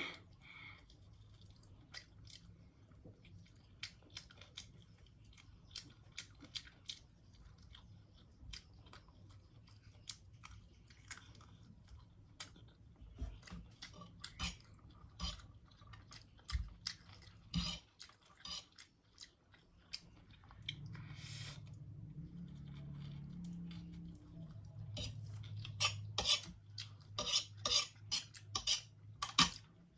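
A person chewing spicy Maggi instant noodles close to the microphone, with many short utensil clinks against the dish. The clinks come thick and fast near the end.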